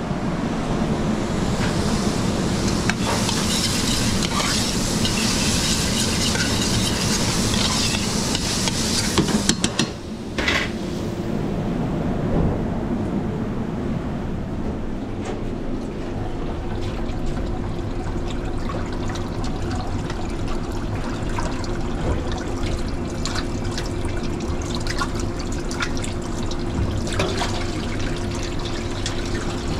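Commercial kitchen background noise: a steady hum of ventilation and equipment. A hissing wash of sound over it fades out about a third of the way in, after a few sharp knocks, and scattered clinks follow.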